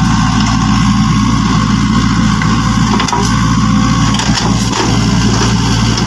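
Steady vehicle engine running sound, a dubbed-in engine effect rather than anything the plastic toys make, with a few light clicks partway through.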